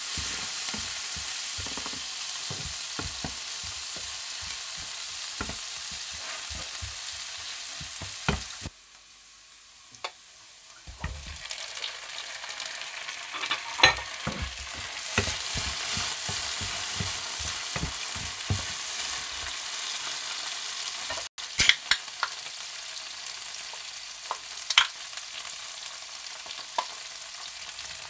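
Butter and chopped aromatics sizzling in a nonstick frying pan as a wooden spatula stirs and scrapes, with a few sharp knocks. Later, whole prawns are frying in the pan. The sizzle drops away briefly about a third of the way in, then picks up again.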